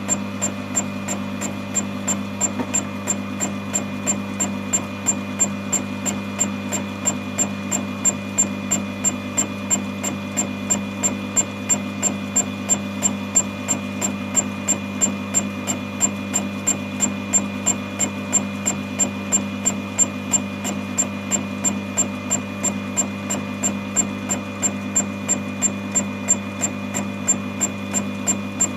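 Home-made fly-cutter on a milling machine taking a facing cut across a metal plate: a regular tick about three times a second as the single cutting bit strikes into the work on each turn. Under it runs the steady hum of the mill's spindle motor.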